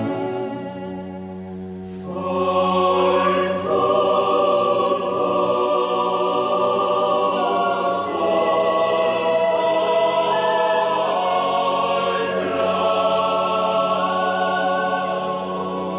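Choir singing slow, sustained chords over a steady low held note, swelling louder about two seconds in.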